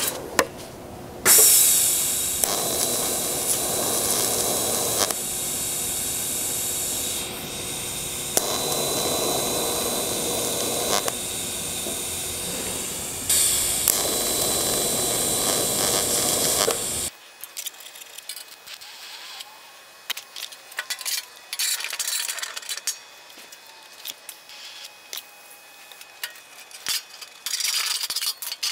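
TIG welding arc on thin sheet-metal fender panels: a steady hissing buzz that starts about a second in, steps up and down in level several times, and cuts off after about fifteen seconds. After that come light scattered metallic clicks and clinks as the fender clamps are handled.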